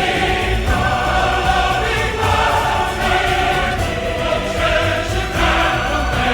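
Background choral music: a choir singing sustained chords over a steady low bass.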